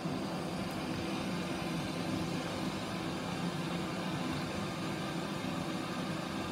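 Two butane cartridge stoves, a Gasmate portable cooker and a small 360-degree burner, burning at full flame: a steady, even rushing hiss, with the 360-degree burner sounding like it is going harder.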